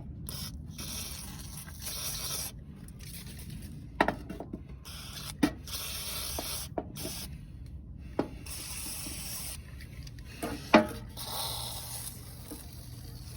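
WD-40 aerosol can spraying penetrating oil in several short hissing bursts onto a seized core support bolt, with a few sharp clicks between them.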